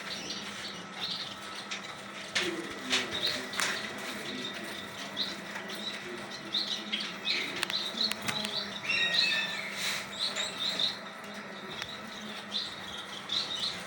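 Pet parrots, cockatiels among them, chirping over and over in many short, high calls, with a few sharp knocks or wing flutters in the first few seconds.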